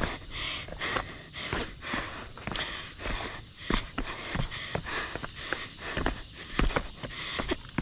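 A runner's shoes striking and scuffing on rock and grit in quick, irregular steps down a steep rocky trail, with heavy breathing.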